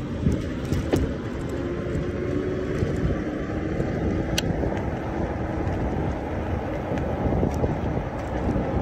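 Wind buffeting the microphone and the tyre rumble of a Lectric electric bicycle rolling over cracked asphalt, with a few sharp clicks along the way.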